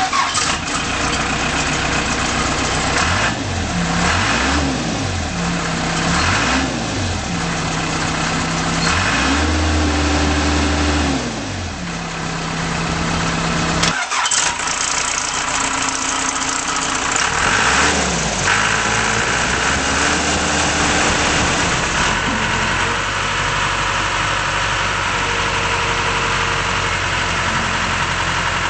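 Case 580L Series II backhoe loader's diesel engine running, revved up and down several times, with one rev held high for a couple of seconds about nine seconds in. After a sudden break about halfway it settles into a steady idle with a few smaller rev changes.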